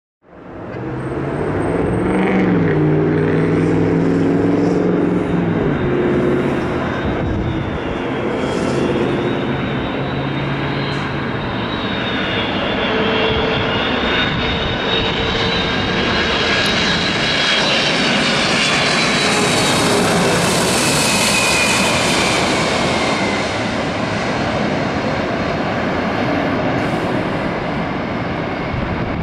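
Boeing 767-300ER twin-turbofan jetliner on final approach, passing close: a steady jet engine rumble with a wavering high fan whine. The hiss builds to its loudest about twenty seconds in as the jet passes, then eases as it moves away toward the runway.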